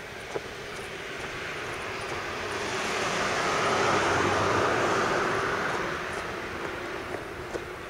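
A vehicle passing close by: a steady rushing noise that builds, is loudest about four seconds in, then fades away. Faint footstep ticks can be heard near the start and end.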